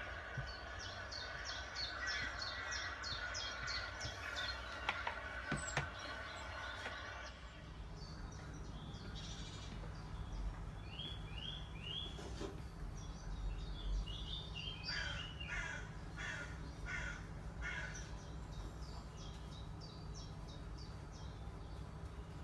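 Birds calling: runs of short, quickly repeated chirps and calls, with a couple of sharp clicks about five seconds in and a steady low hum setting in about halfway.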